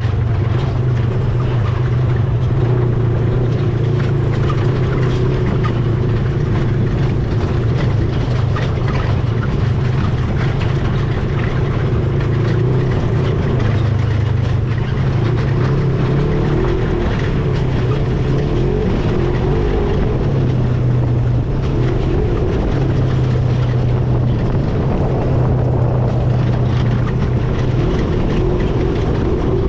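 ATV engine running steadily under way, a continuous low drone with a broad rushing noise over it.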